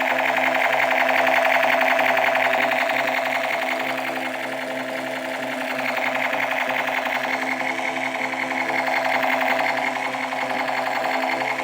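Battery-operated toy running: a fast, continuous mechanical rattle over a simple electronic tune of stepping notes.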